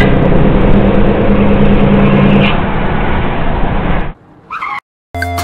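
Motor vehicle engine running loudly with a steady low hum, which cuts off abruptly about four seconds in. A brief gliding sound follows, and music starts just before the end.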